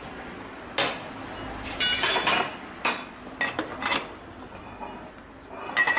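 Steel socket wrench on a car's wheel bolts, giving about half a dozen sharp metallic clinks with a brief ring as the bolts are worked loose.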